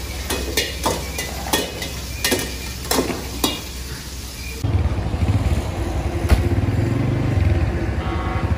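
Metal ladle clanking and scraping in a karahi wok of mutton sizzling over a high gas flame, with sharp strikes about twice a second. About four and a half seconds in this gives way abruptly to a steady low rumble.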